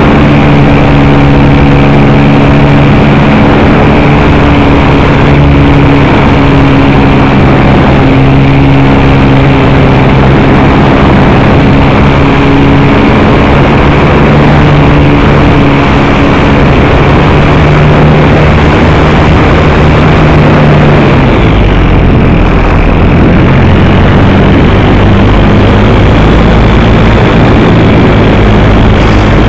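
Model airplane's motor and propeller, heard loud and close from the onboard camera, running at a steady pitch; about two-thirds of the way through the pitch drops and stays lower as the throttle is cut back for the descent, with a faint high whine rising slightly above it.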